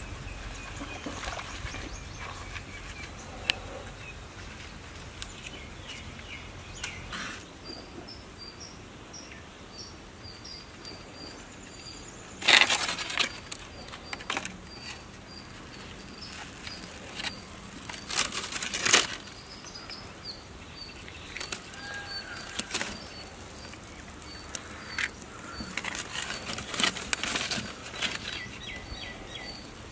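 A bird calling in short, repeated high chirps over outdoor ambience, while dry sticks and leaves are handled and set alight in a wood-fired barrel stove. Two loud, brief bursts of rustling about twelve and eighteen seconds in, with smaller rustles near the end.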